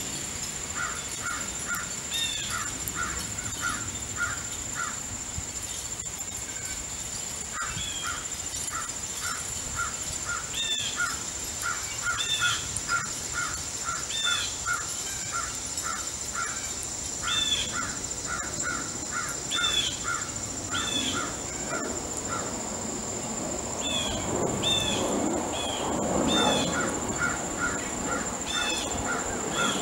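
Crows cawing in quick runs of short calls, with sharper, higher down-slurred bird calls repeating above them. A steady high-pitched whine runs underneath, and a low rumble builds near the end.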